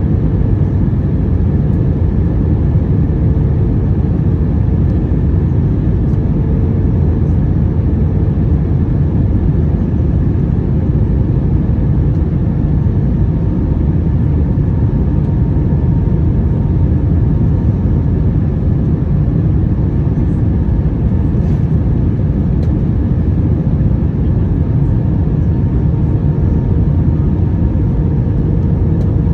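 Steady cabin noise inside an Airbus A321-200 airliner: a loud, even low rumble of engines and airflow with a faint steady hum over it.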